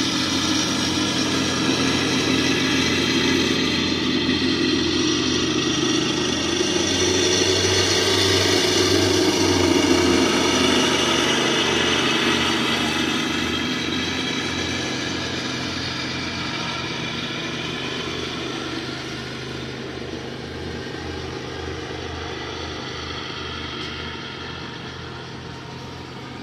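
Lawn mower engine running steadily, swelling to its loudest about ten seconds in and then slowly fading.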